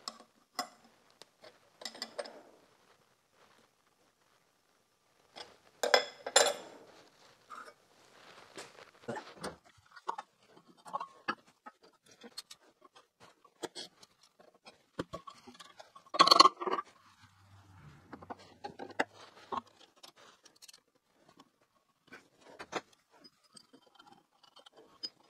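Scattered metal clinks and clanks as a small steel tool-bit grinding fixture and the cutter grinder's head are handled and adjusted by hand, with louder knocks about six and sixteen seconds in. The grinder motor is not running.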